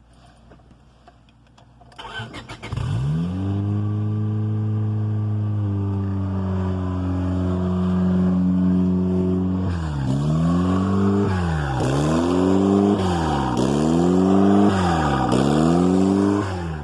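Turbocharged car engine started for the first time after the turbo install, run without intercooler piping: it cranks and catches about two seconds in, settles into a steady idle, then from about ten seconds is revved again and again, the pitch rising and falling about four times.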